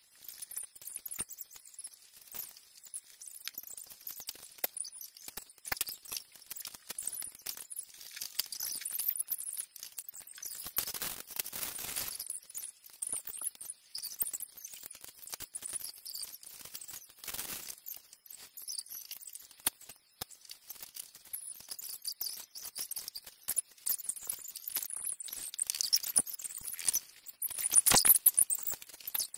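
Small plastic LEGO bricks clicking and clattering as pieces are handled on a tabletop and snapped together, with two longer rustling stretches about 11 and 17 seconds in and the busiest clatter near the end.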